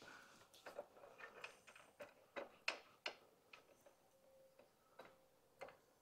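Faint, scattered clicks and light metallic taps of bolts and hand tools being handled while fitting a motorcycle's block-off plate. The clicks come at irregular intervals and thin out in the second half.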